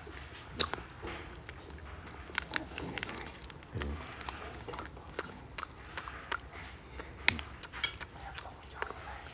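Close-up eating sounds of a man eating rice noodles in soup: chewing and mouth smacks, with frequent short sharp clicks of chopsticks and a spoon against the bowl.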